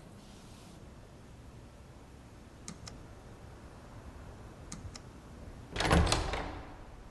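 A few faint clicks, then a door being opened with a short clatter of latch and handle about six seconds in.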